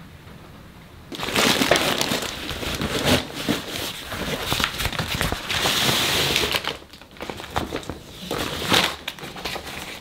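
Nylon stuff sacks and a mesh drawstring bag being handled and packed: a busy crinkling and rustling of fabric that starts about a second in and goes on with brief pauses.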